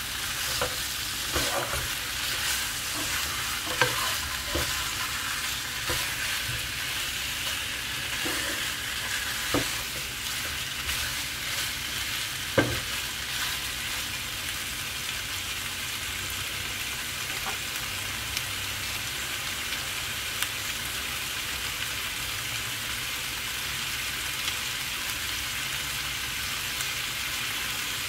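Chicken pieces sizzling in a pan while a utensil stirs them, knocking and scraping against the pan during the first dozen seconds, with one sharper knock about twelve seconds in; after that the sizzle runs on steadily.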